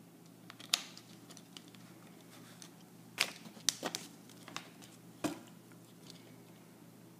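Plastic cap being screwed onto a thin plastic Arrowhead water bottle, with the bottle being handled: a handful of sharp plastic clicks and crackles, the loudest bunched about three to four seconds in and another a little after five seconds.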